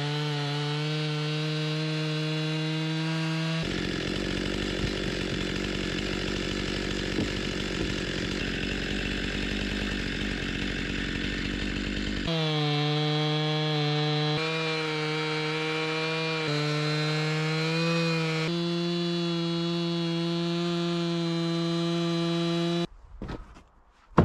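Two-stroke Stihl chainsaw in an Alaskan chainsaw mill running at full throttle, ripping a softwood log into boards. The steady engine note comes in several stretches whose pitch shifts slightly from one to the next. It cuts off about 23 seconds in, and a short knock follows near the end.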